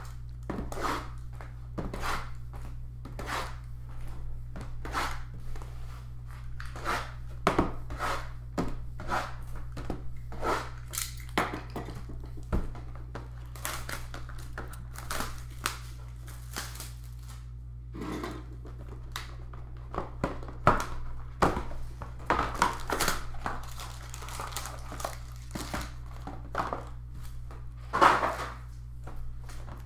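Plastic wrapping being crinkled and torn by hand as sealed football trading card boxes and packs are opened, in irregular handfuls of crackling rustles with a few sharper rips.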